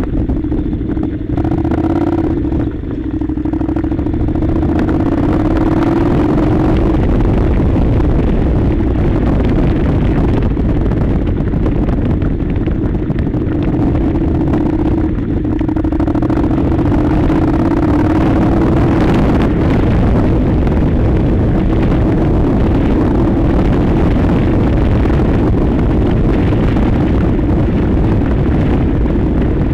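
Honda NC700's 670 cc parallel-twin engine running steadily under way on a gravel track, with a dense noise of travel around it. The engine eases off briefly about three seconds in, then its note climbs gently as it pulls again.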